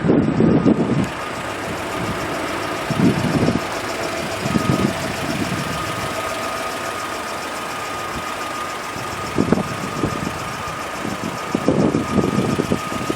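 GAZelle Business Farmer van's UMZ-4216 2.9-litre four-cylinder petrol engine idling steadily, with a few short louder bursts of indistinct sound over it.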